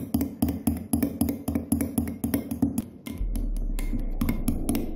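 Fork whisking egg yolks and salt in a glass bowl, tapping against the glass in quick, even strokes about five times a second. About three seconds in, the strokes thin out and a steady low hum comes in.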